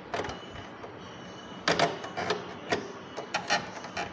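Plastic stitch-selector dials on a Usha Allure DLX sewing machine being turned by hand, giving about eight short, uneven clicks, several close together in the second half.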